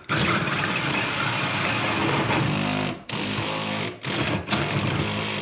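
24V DeWalt cordless drill spinning a carbide-tipped hole saw into Hardibacker cement board, running in bursts. The motor hum and cutting hiss stop briefly about three seconds in and twice more near the end.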